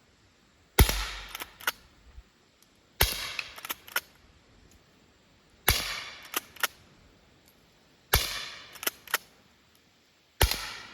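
Five shots of .22 Short from a small-frame Colt Lightning slide-action rifle, about two to two and a half seconds apart. Each shot is followed by two quick clicks as the slide is worked to eject and chamber the next round.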